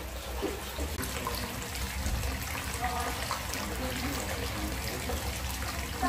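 Hot-spring source water pouring steadily from a pipe spout over a stone lip into a rock bath: a continuous trickling splash.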